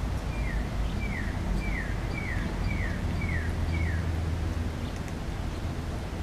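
A bird calling a short, whistled, falling note seven times in a row, about two a second, then stopping, over a steady low rumble.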